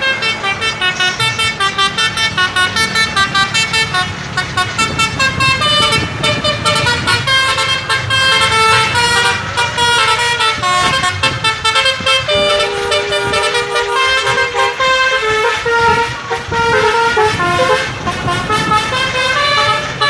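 Tour bus 'telolet' multi-tone air horn playing a quick melody of short, jumping notes, repeated over and over.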